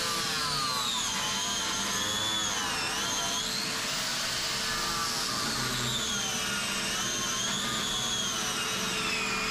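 Electric angle grinder grinding fibreglass tabbing, its high whine sagging and recovering in pitch as the disc is pressed into the work, over the steady hum of the dust-extraction vacuum drawing through the hose on the grinder.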